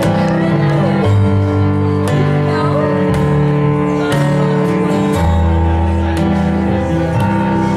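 Live music: held chords that change about once a second, with plucked string notes among them.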